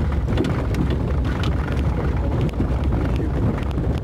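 Inside the cabin of a Ford Taurus driving through the woods: a steady low rumble of engine and road noise, with a few faint clicks and rattles.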